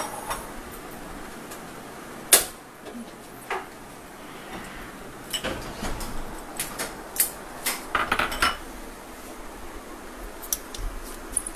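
Kitchenware being handled: bowls and a steel plate clinking and knocking as they are picked up and set down, in scattered sharp clinks with the loudest about two and a half seconds in and a run of smaller ones later.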